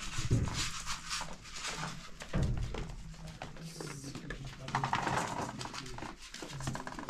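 Sheep bleating over rustling and handling noise, with a couple of low thumps.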